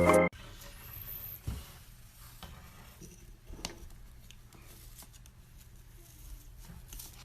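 Electronic organ music cutting off abruptly just after the start, followed by quiet room sound with scattered small clicks and taps and a faint high squeak about a second in.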